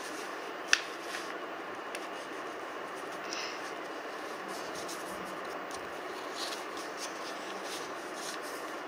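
Origami paper being folded and creased by hand: soft rubbing and rustling of paper over a steady background hiss, with a sharper paper crackle about a second in.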